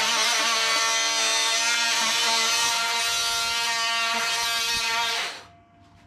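Cordless oscillating multi-tool running at its highest speed, the blade plunge-cutting into a wooden board with a steady buzz that stops a little past five seconds in.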